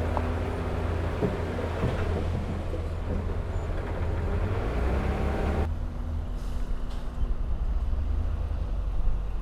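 Heavy diesel earthmoving machinery running steadily with a deep engine rumble and a few faint knocks. A little past halfway the higher noise cuts off abruptly, leaving the low engine note.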